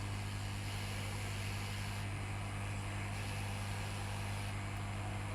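Hot air rework station blowing at 400 °C onto a phone board to loosen the WiFi chip: a steady hiss of air over a low, even hum.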